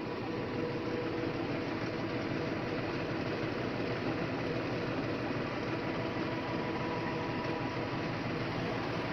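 Tractor engine running steadily while its PTO shaft drives a tractor-mounted sprayer pump, an even mechanical drone with a few steady tones through it.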